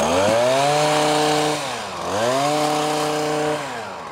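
Small gas engine of a handheld power trimmer revved up twice, each time held at full throttle for about a second and then let back down to idle, as the man cuts into the ivy hedge.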